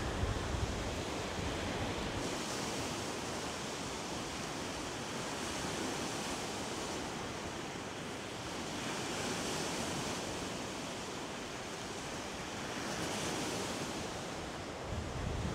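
Small lake waves washing against a rocky shore, swelling and easing about four times. Wind buffets the microphone near the start.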